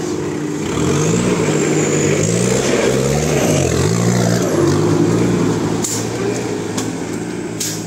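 Mahindra jeep's engine revving as it crawls over a rutted dirt off-road trail, its pitch rising and falling several times, loudest in the middle. A few short knocks come near the end.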